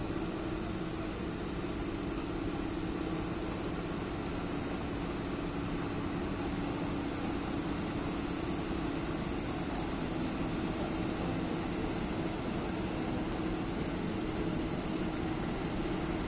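EP07 electric locomotive approaching at the head of a passenger train: a steady rumble and hum with a thin high tone, getting slightly louder near the end.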